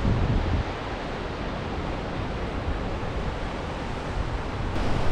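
Ocean surf washing onto a rocky shore as a steady rushing hiss, with wind buffeting the microphone in low gusts, strongest in the first half second.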